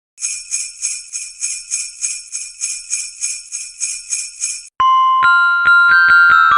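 Sleigh bells jingling in a steady rhythm, about three or four shakes a second, like a sleigh in motion. They stop abruptly about three-quarters of the way through, and a bright, bell-like keyboard melody of ringing single notes begins.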